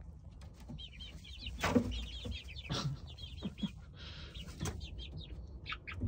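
Young pullets in the coop peeping in quick runs of short, high chirps, with a few louder, lower clucks and a brief rustle about four seconds in.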